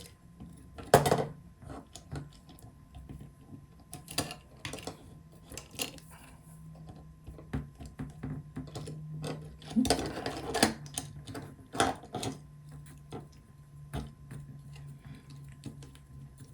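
Small bolts, nuts and 3D-printed plastic robot parts being handled, aligned and tightened by hand: irregular clicks and knocks, the sharpest about a second in, over a faint steady low hum.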